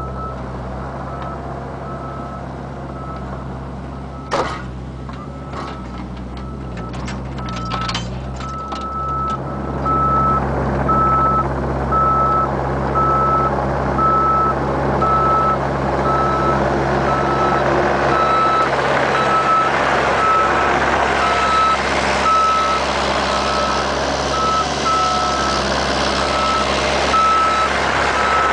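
Bobcat 430 mini excavator working, its diesel engine running with a steady beep-beep travel alarm over it. A series of sharp knocks comes about four to nine seconds in, and from about ten seconds the engine and machine noise grows louder as it works under load.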